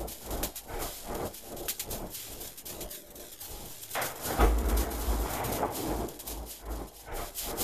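Sound-design soundscape from an installation loop: irregular clicks and knocks over a noisy bed, with a deep rumble about four seconds in.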